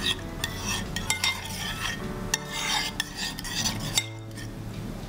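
Metal spoon stirring a runny mix of clear glue and water in a ceramic bowl, scraping along the bowl with a few sharp clinks against its side.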